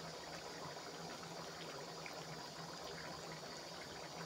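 Chicken heart curry gravy bubbling steadily at a simmer in a metal kadai, with faint pops of bursting bubbles over a low steady hum.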